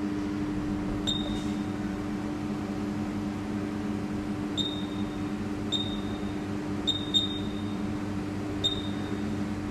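About six short, high-pitched beeps, spaced irregularly, from the spot welding machine's controller keypad as the weld current is set down to 6 kA. A steady electrical hum runs underneath.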